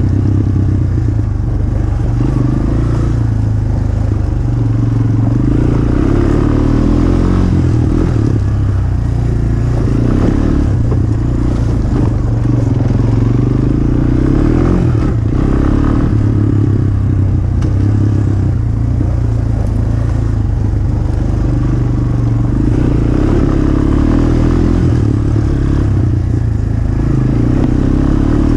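Dirt bike engine running under way, its revs rising and falling with the throttle.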